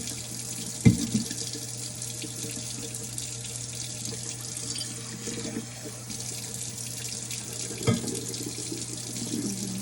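Steady watery hiss with a low hum under it, broken by two sharp knocks, about a second in and again near the end, like glassware set down on a table.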